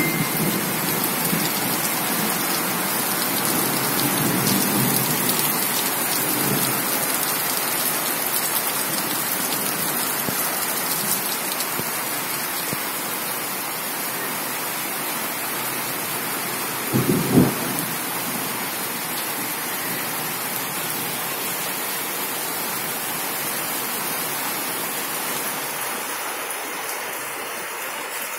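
Steady rain falling on garden foliage and ground, with a low rumble of thunder during the first several seconds. A short low thump a little past the middle is the loudest moment.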